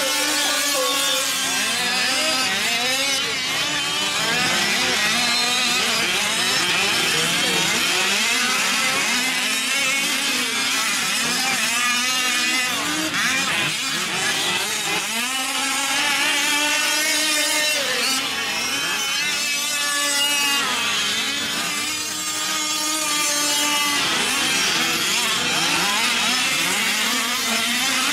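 Several 5th-scale gas RC off-road trucks racing, their small two-stroke engines overlapping as they rev up and drop off again and again.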